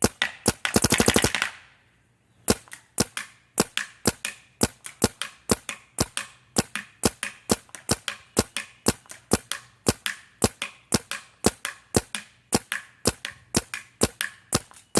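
Planet Eclipse Geo 3 paintball marker firing: a rapid burst of shots near the start, then after a short pause a steady string of single shots, roughly three to four a second.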